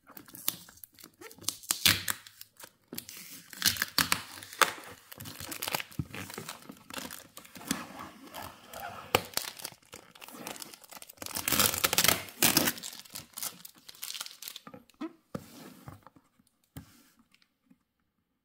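Yellow adhesive tape being peeled and torn off a cardboard box, with irregular crinkling and ripping. The tearing is loudest about two-thirds of the way through and stops a few seconds before the end.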